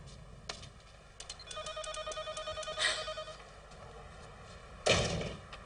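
Electronic telephone ringer giving one short warbling trill, a fast pulsing tone, about a second and a half in. A short loud noise follows near the end.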